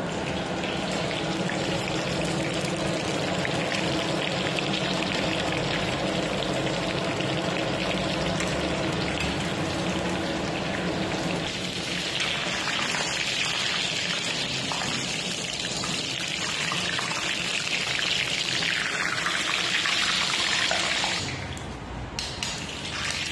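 Marinated chicken deep-frying in a wok of hot oil, sizzling and bubbling steadily. About halfway through, the sizzle turns higher and hissier as the pieces are lifted in a wire strainer. Near the end it drops away, with a few metal clinks.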